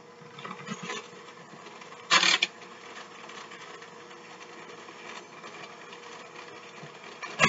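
Electric hand mixer running steadily, its beaters shredding cooked chicken breast in a bowl. A brief loud clatter comes about two seconds in and again at the very end.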